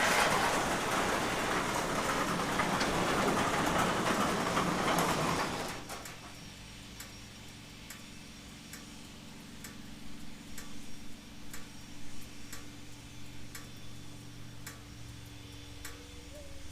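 Harley-Davidson Road Glide's V-twin engine running, then shut off about six seconds in. Afterwards a faint low hum with regular light ticking, about three ticks every two seconds.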